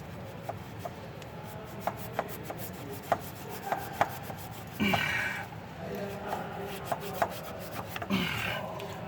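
Hand scrubbing of the oxidized aluminium EGR valve bore on a 6.4 Powerstroke diesel with an abrasive, done dry to take off white corrosion. It is a rubbing, rasping sound with scattered light clicks, and two longer, louder strokes about five and eight seconds in.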